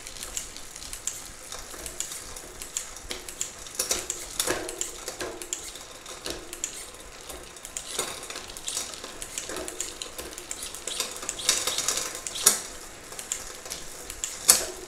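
Bicycle chain running over a 12-speed cassette as the cranks are turned by hand, with repeated metallic clicks and rattles as the Wheeltop EDS OX 2.0 electronic rear derailleur shifts it from cog to cog through the gears.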